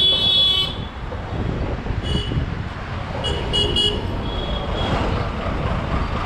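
Road traffic rumble with vehicle horns honking: a loud high-pitched horn cuts off just under a second in, then several short toots follow between about two and five seconds.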